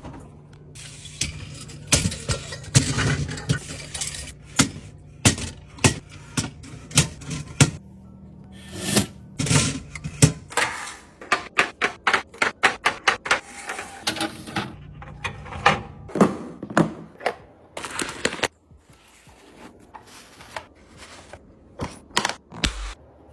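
Household items being handled and set down during a restock: many sharp clicks, taps and knocks, with a quick run of tapping in the middle. A steady low hum runs underneath for the first third.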